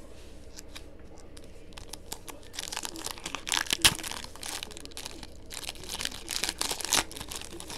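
Foil trading-card pack wrapper being torn open and crinkled by hand. The crackling starts about two and a half seconds in, with a sharp snap of foil near the middle, and a second run of crinkling comes as the cards are pulled out of the wrapper.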